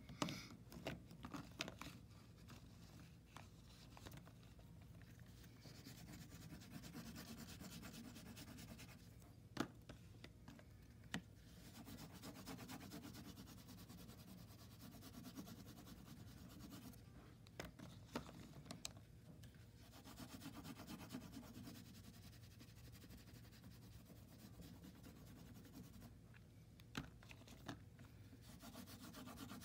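Oil pastel sticks rubbing and scratching across paper in back-and-forth hatching strokes, faint, coming in stretches of a few seconds each. A few sharp taps or clicks are scattered through.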